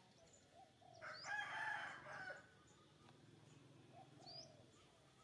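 A rooster crows once, starting about a second in and lasting over a second, with small birds chirping faintly around it.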